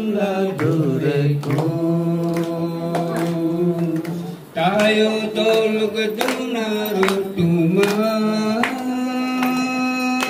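A man singing a slow gospel hymn solo into a microphone, holding long, drawn-out notes, with a short break for breath about halfway through and a step up in pitch near the end.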